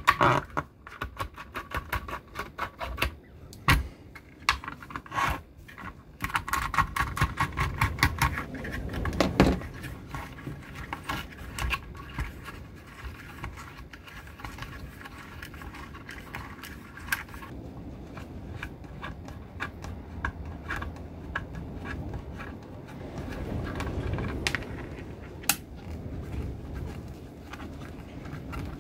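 Small bolts, nuts and washers being undone by hand from a speaker crossover board: bursts of rapid clicking and the rattle and clatter of the small metal hardware on a cutting mat, with handling noise from the board.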